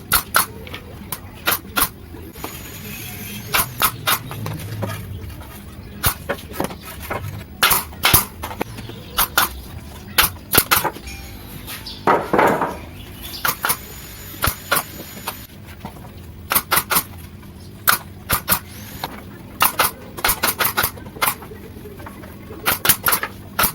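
Irregular sharp knocks and metallic clinks of tools and parts being handled during workshop construction, with a short scraping burst about twelve seconds in; no saw is running.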